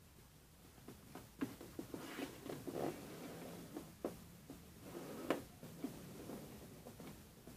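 A sheet of 80 g/m² A4 paper being handled, creased and smoothed flat by hand: rustling with sharp crackles and clicks, starting about a second in, the sharpest a little after five seconds.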